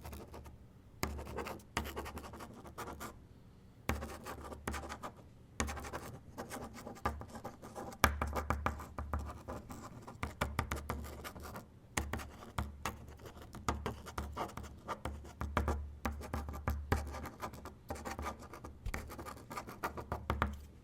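Pen writing on paper: scratchy strokes in short bursts broken by brief pauses, with small ticks as the tip touches down and lifts off.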